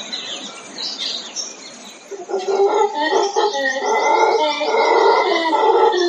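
Rainforest dawn chorus: birds chirping, then a little over two seconds in, a dense chorus of lower animal calls joins in and keeps getting louder.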